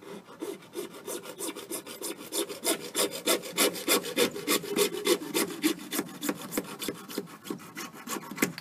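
Hand saw cutting through a piece of pipe in quick back-and-forth strokes, several a second, the strokes growing louder towards the middle and stopping just before the end.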